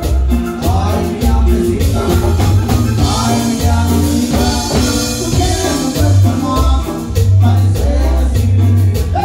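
Live norteño band playing a cumbia: button accordion, guitar, electric bass and drum kit over a steady beat, with a man singing lead.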